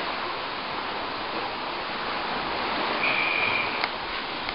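Steady rushing of rough sea water along the shore on a rising Bay of Fundy tide. About three seconds in, a thin high whistle sounds for under a second, followed by a sharp click.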